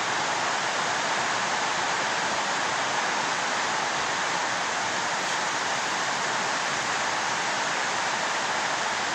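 A steady, even hiss with no tones or knocks in it.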